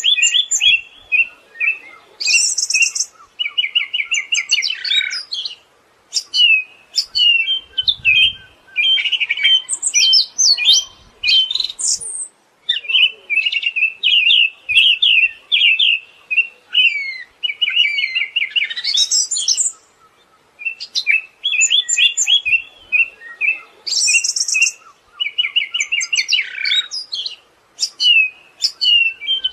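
Siberian thrush singing a long, fast, varied song of chattering trills and chirps, with short pauses between runs and a buzzy high phrase now and then.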